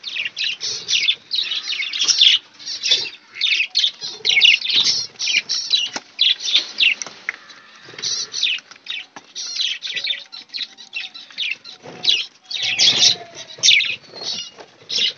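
Caged budgerigars and finches chattering and chirping in a dense, unbroken stream of short, scratchy calls.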